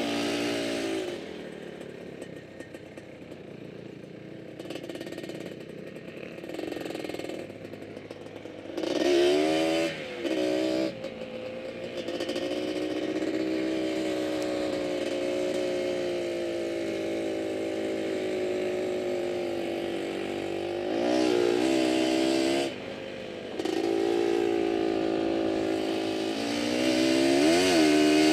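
Quad (ATV) engine driving over sand dunes. It runs at low throttle for the first few seconds, then the revs climb about nine seconds in, with short bursts of throttle just after. It holds a steady run, revs up again about two-thirds of the way through, drops briefly, and climbs once more near the end.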